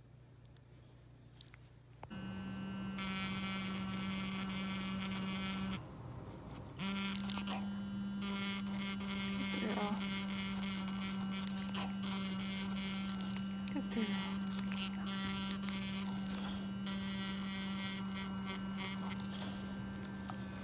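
Handheld ultrasonic dental plaque remover buzzing with a steady electric hum as it vibrates against tartar on a dog's canine tooth. It switches on about two seconds in, cuts out for about a second near six seconds, and then runs steadily again.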